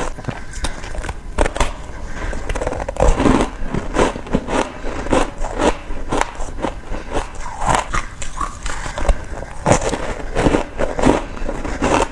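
Shaved ice being bitten and chewed close to the microphone: a rapid, irregular run of loud crunches with short squeaky notes as the packed ice gives way.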